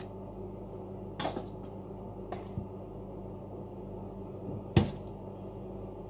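A metal spoon knocking and scraping against a metal bowl and an aluminium foil tray while sauce is spooned out: a few sharp knocks, the loudest about five seconds in, over a steady low hum.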